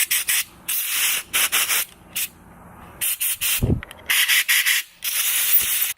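Compressed-air blowgun fired in about a dozen short hissing blasts, the last one longer, blowing carb cleaner and loosened varnish out of a small engine carburetor's passages. A brief low thud sounds partway through.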